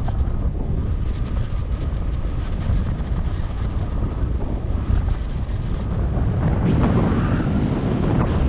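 Wind noise from the airflow over the camera microphone of a paraglider in flight: a steady rushing, swelling a little about seven seconds in.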